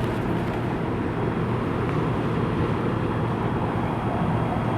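Early-1970s Whirlpool central air-conditioner condenser running: a steady low hum under the even rush of its fan moving air.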